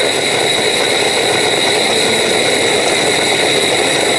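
Electric kitchen appliance motor running steadily, mixing a batch that is meant to turn thick and sticky rather than runny.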